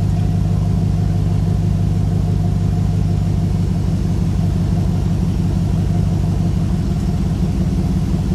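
Land Rover Discovery's V8 engine, fitted with a tuned camshaft, running steadily at low revs as the truck crawls on a steep bank.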